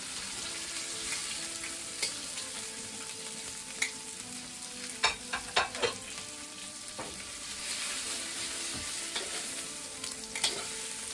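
Broccoli frying in hot oil in a steel wok, a steady sizzle, with a few sharp metal clinks of tongs and pan against the wok, several close together about five to six seconds in.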